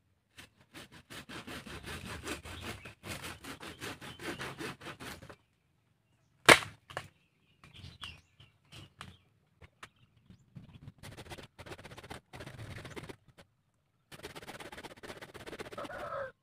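Hand saw cutting through the roots of a sea hibiscus (waru) tree at its base, in bursts of quick back-and-forth strokes with pauses between. One loud sharp crack comes about six and a half seconds in.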